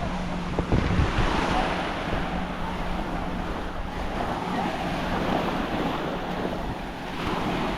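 Sea waves washing onto a sandy beach, with wind buffeting the microphone in a few low thumps about a second in.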